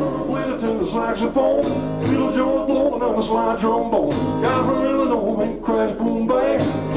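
Live band music: acoustic guitar strummed with an upright double bass underneath and a male voice singing into the microphone.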